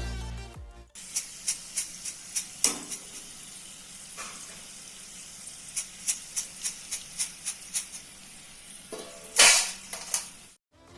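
Oil sizzling in a pan with scattered sharp pops and crackles. There is a louder burst of sizzling about nine and a half seconds in.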